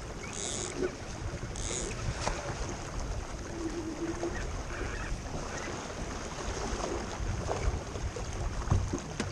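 Wind buffeting the microphone and water rushing along the hull of a small sailing keelboat under way. Two short hisses sound about half a second and a second and a half in, and a sharp knock near the end.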